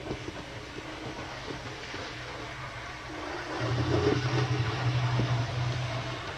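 Small electric motor of a Hornby OO-gauge Class 155 DMU model buzzing under power, louder for a couple of seconds past the middle. It turns sluggishly, and the owner suspects something stuck or short of lubrication is restricting it.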